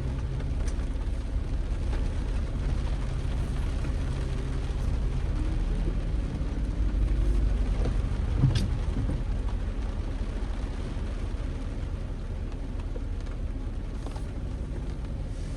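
Steady low rumble of a motor vehicle's engine under an even hiss of rain, with one sharp knock about halfway through.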